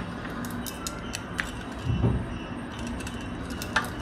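A steel spoon clicking and scraping lightly against an aluminium pot as half-cooked basmati rice is spooned in and spread, with a sharper tap near the middle and another near the end. A steady low hum runs underneath.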